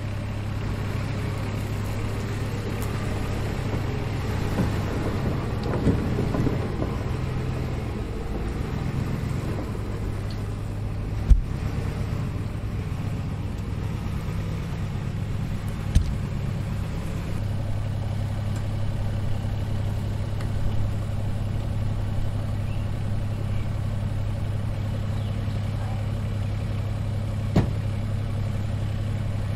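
Shuttle bus engine running steadily at low speed as it pulls an enclosed cargo trailer, a constant low hum. A few sharp knocks break through.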